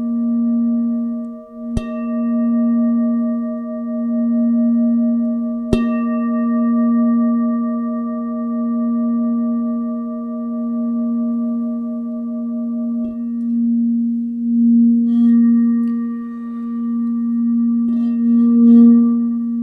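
Clear crystal singing bowl ringing with a steady, sustained tone that swells and fades in slow pulses as it is sung around the rim with a wand. It is struck twice near the start, about two and six seconds in, each strike brightening the ring.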